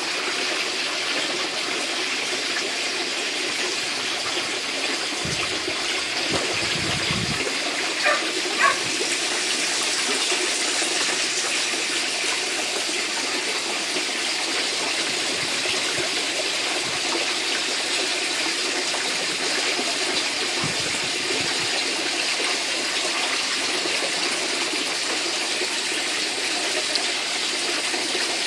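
Steady rush of water pouring and splashing into a saltwater fish tank, the return flow of its sump pump circulation. There are two short taps about eight seconds in.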